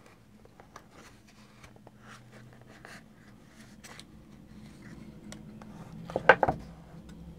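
Hands working a wooden-link watch free of its cardboard presentation box: faint rubbing and scattered small clicks of the wooden links and box. A couple of louder short squeaks come about six seconds in.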